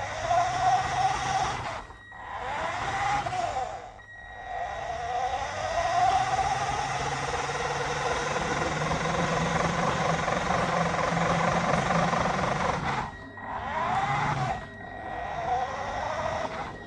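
Radio-controlled toy Mini Cooper S car's electric motor and gears whining as it drives, the pitch rising and falling with the throttle, with short breaks about two and four seconds in and again near the end. It is being run to check for a knocking noise, which the owner thinks he can still hear.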